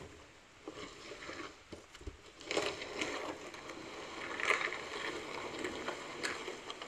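Plastic muck shovel pushed along wet concrete: a few knocks of the blade, then a long rough scraping from about two and a half seconds in.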